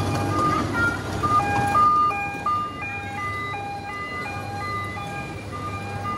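A simple electronic jingle of short beeping notes, an ice-cream-van-style tune at about two to three notes a second, from a coin-operated kiddie ride-on car ride, over a steady low hum.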